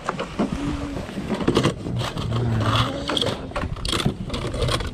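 A young child making engine-like play noises with his voice while playing with toys, with clicks and rattles of plastic toys and items being handled.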